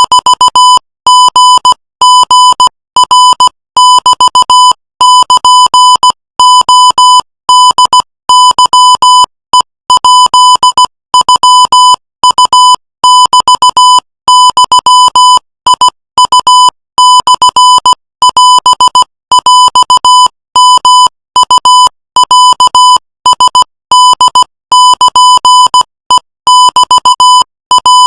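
Morse code sent at 18 words per minute as a single high electronic beep, keyed on and off in quick dots and longer dashes with short gaps between letters and words.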